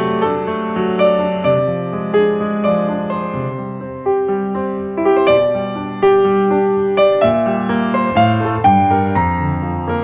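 Background piano music: a slow melody of struck notes over sustained lower chords, each note starting sharply and fading away.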